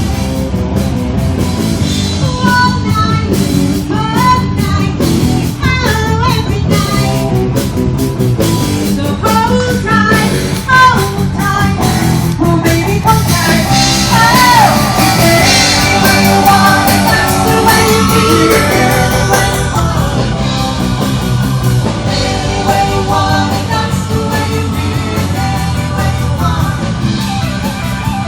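Live rock band playing, with a singer, electric guitar and drum kit.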